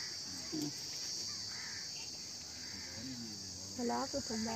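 Steady, high-pitched drone of a chorus of insects, with people's voices coming in near the end.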